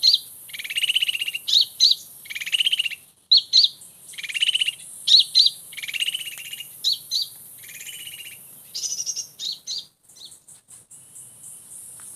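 Small birds calling: sharp high chirps alternating with buzzy trills about half a second long, repeated again and again, thinning out over the last two seconds.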